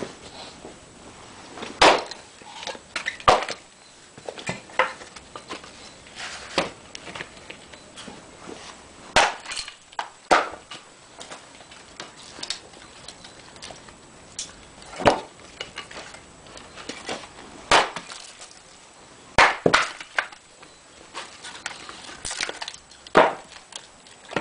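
Axe blows splitting black locust firewood on a chopping block: about ten sharp, hard chops at irregular intervals of one to a few seconds.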